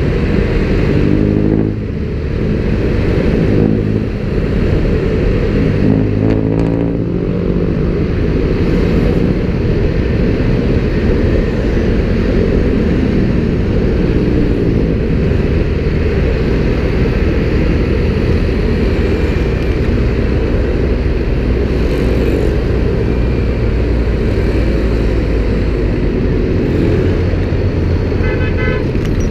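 City street traffic: car and motorcycle engines running close by over a steady low rumble, with engine notes passing about a second in and again around six seconds in.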